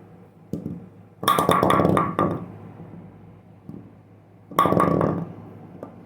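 Brunswick Max wooden bowling pin clattering twice, each time a quick run of knocks with a ringing, hollow tone lasting about a second. A faint knock comes just before the first.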